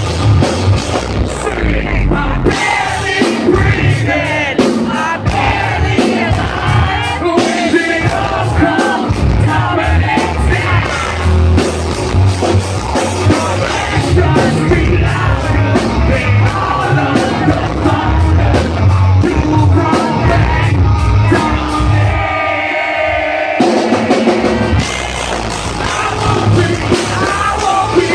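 Live rock band playing loud: electric guitars, drums and a lead singer. The drums and cymbals drop out briefly about 22 seconds in, then the band comes back in.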